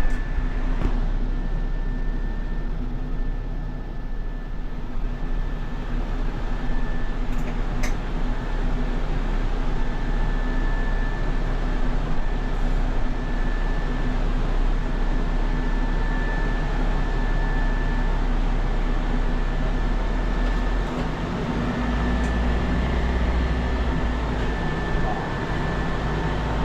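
Backhoe's diesel engine running steadily, heard from inside its cab, with a steady high whine over it. The low engine sound grows stronger about 21 seconds in.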